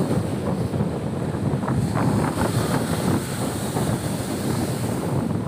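Strong wind buffeting the microphone over rough surf, with waves breaking and splashing against the boulders of a rock breakwater.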